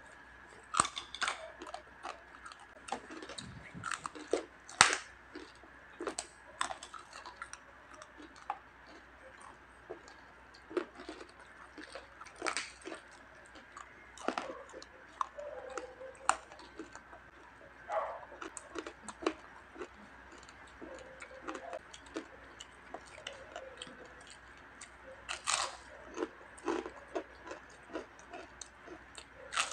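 Close-up crunching and chewing of crispy pork skin (chicharon) and fried chicken skin: irregular sharp crackles with louder clusters of bites every few seconds.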